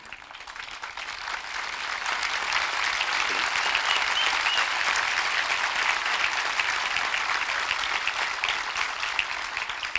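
Audience applauding: the clapping swells over the first two or three seconds, holds steady, then dies away near the end.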